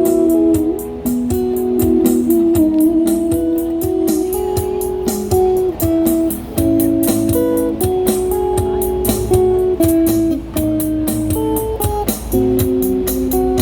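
Live band's instrumental break: guitar chords strummed in a steady rhythm, with no singing.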